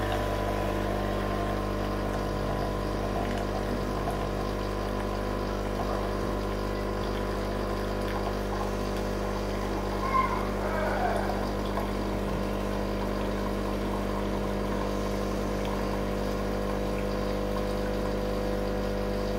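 La Cimbali Junior espresso machine's pump running with a steady hum as hot water pours from the group head into a cup to warm it.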